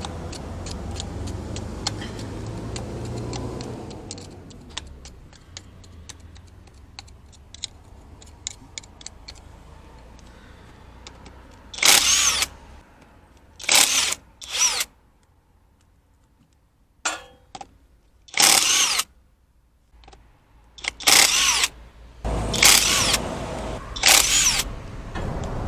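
Handheld power tool run in repeated short bursts of about a second each, several times in the second half, loudest of all. Before that, a low steady hum for the first few seconds, then a run of sharp metallic clicks and taps.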